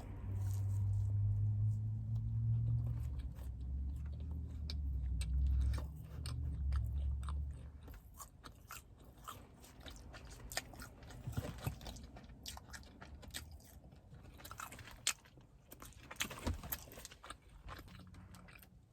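Close-up mouth sounds of a person biting and chewing a mochi donut: many short wet clicks and smacks. A low steady rumble underlies the first eight seconds or so, then drops away.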